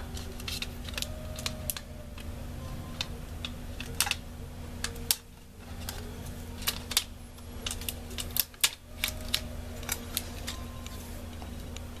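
Irregular small clicks and taps of fingers picking at the tape and cable connector on a Mac Mini's hard drive, scattered through the whole stretch.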